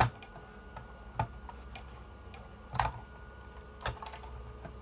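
Sharp, irregular clicks and taps of a screwdriver on the plastic and metal parts of a Birch Q2 receipt printer being taken apart, four louder clicks spaced about a second apart with lighter ticks between. A faint steady tone runs underneath.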